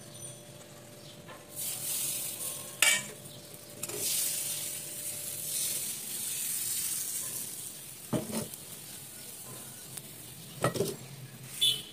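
Pancake batter sizzling as it hits a hot clay pan (khola). A hiss starts about a second and a half in and lasts about six seconds. A few short knocks against the pan follow near the end.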